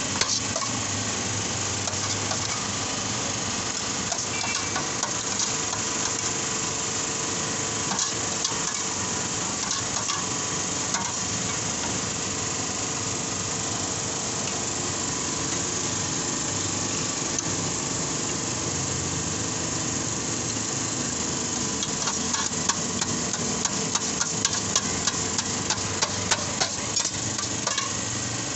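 A steady hum and hiss, with a knife and a metal spoon tapping and scraping on a steel tray and flatbreads. The sharp taps come thick and fast in the last several seconds.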